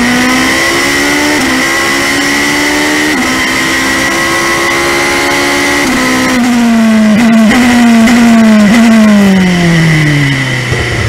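Dallara GP2 car's 4.0-litre Mecachrome V8 heard onboard at full throttle, its pitch climbing and dropping briefly twice as it shifts up through the gears. From about six seconds in the pitch falls steadily as the car brakes and shifts down, with short throttle blips on the downshifts.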